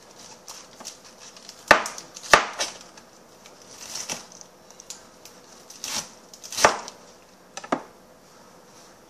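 Knife chopping lettuce on a plastic cutting board: four sharp knocks of the blade on the board, with crisp rustling of the leaves being torn and cut between them.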